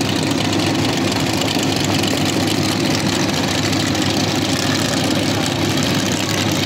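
Sand drag race car engine idling loudly and steadily, with no revving.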